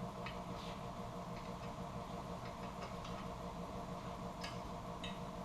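A steady machine hum with a few faint, short clicks.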